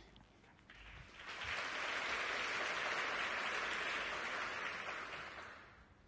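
Theatre audience applauding, swelling in about a second in and dying away near the end.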